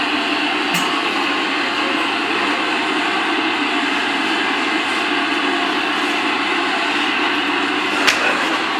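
Steady loud background noise, with a light metal click about a second in and a sharper metal knock near the end as a bus tyre is worked on a manual tyre changer.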